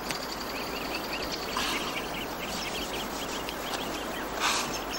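Outdoor ambience of small birds chirping many short, quick notes over a steady hiss, with a brief burst of noise near the end.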